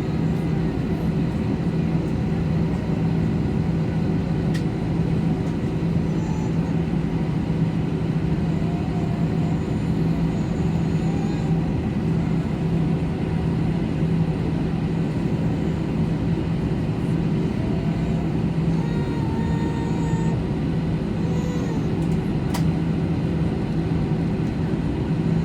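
Steady cabin noise inside an Airbus A321 on the ground: a constant low hum under an even rush of air, with a few faint wavering tones and a couple of light clicks now and then.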